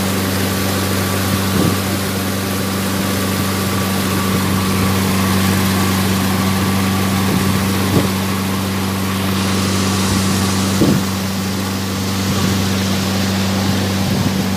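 Motorboat engine running steadily under way, a constant low hum over the rush of water and wind past the hull, with a couple of brief knocks.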